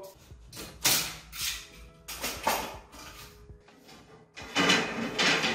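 Wooden bed slats of a slatted bed base clattering and knocking against each other as they are lifted and handled, in several short bursts.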